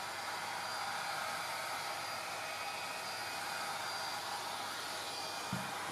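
Steady whooshing noise, like a fan or blower running, with a faint high whine; a soft low bump comes near the end.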